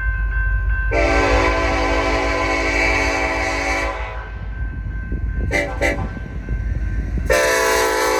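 Union Pacific freight locomotive's air horn sounding the grade-crossing signal: a long blast, a brief double toot, then another long blast beginning about seven seconds in, over the low rumble of the passing train.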